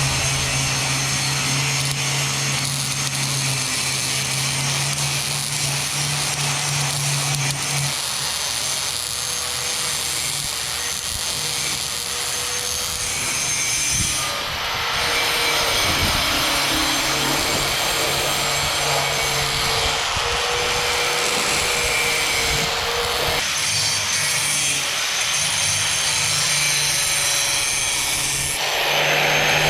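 Electric power tool cutting or grinding metal, running steadily, with its motor's whine; it gets louder near the end.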